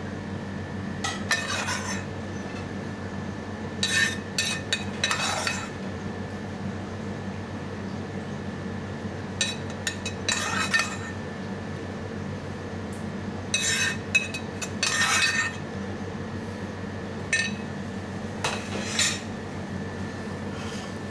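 A metal spoon clinks and scrapes against a non-stick frying pan and a plate as sauce is spooned out, in about eight short bursts. A steady hum runs underneath.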